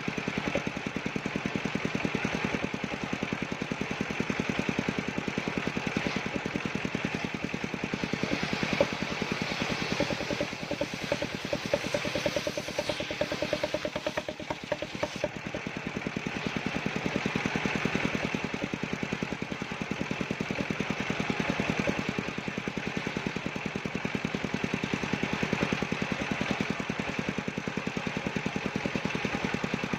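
Engine of a wood-cutting machine running steadily with a fast, even beat, its loudness turning uneven and spiky for a few seconds in the middle.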